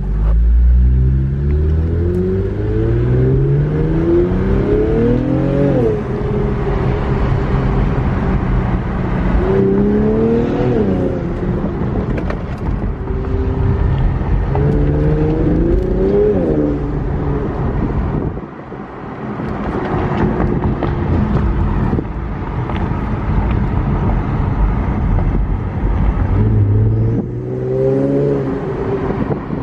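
Infiniti Q50 with AMS cold air intakes pulling hard from the start, its engine note climbing for several seconds, then revving up again in shorter climbs three more times, each one cut off as the throttle lifts or it shifts.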